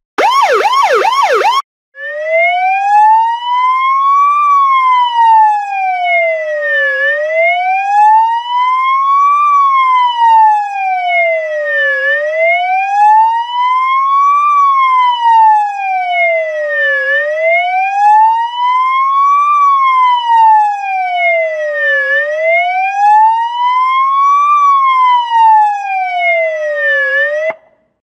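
Electronic police siren: a brief rapid yelp, about five sweeps a second, then after a short break a slow wail that rises and falls about every five seconds, five times over, before cutting off abruptly near the end.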